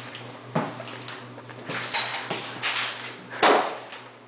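Knocks and clunks from a vending machine being handled, about five separate ones, the loudest about three and a half seconds in, over a steady low hum.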